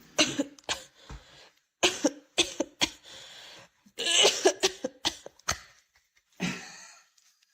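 A series of short coughs and hacks with gaps between them, the longest and loudest about four seconds in.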